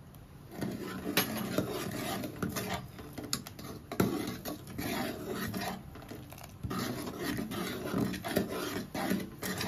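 Steel ladle stirring sabudana kheer in an aluminium pot, scraping along the bottom and sides with an uneven rubbing sound and a few sharp clinks against the metal.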